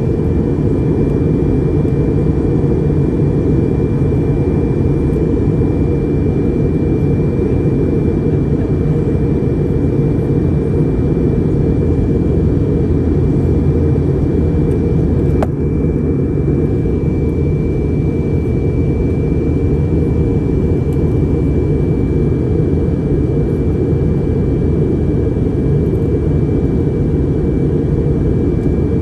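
Steady engine and air noise inside an airliner's cabin in flight, a dense low rumble with a thin steady high tone running over it. A single sharp click comes about halfway through.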